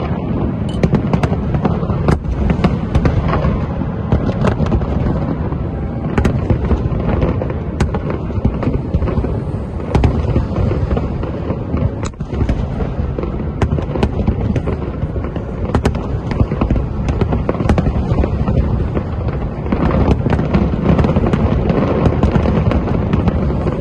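Fireworks bursting in a continuous barrage: a dense, unbroken run of low booms with many sharp cracks.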